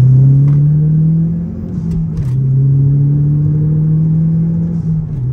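2013 Mazdaspeed3's turbocharged 2.3-litre four-cylinder engine and Cork Sport exhaust pulling hard under acceleration, heard inside the cabin. The engine note rises, drops sharply about two seconds in as the manual gearbox is upshifted, then climbs again.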